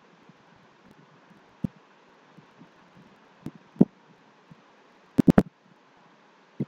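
Faint steady hiss with a few scattered low knocks, including three in quick succession a little after five seconds in.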